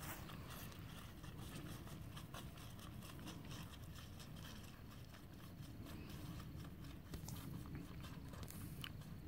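A riding mule's hooves walking on soft arena dirt: faint, irregular thuds and scrapes over a low steady rumble.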